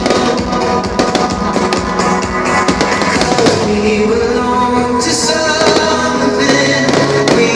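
Music with singing, loud throughout, with the sharp bangs and crackles of fireworks mixed in.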